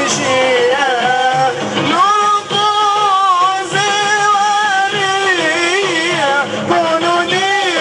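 Men's voices singing a melodic religious chant in a madjilisse style, with long, wavering held notes that continue without a break.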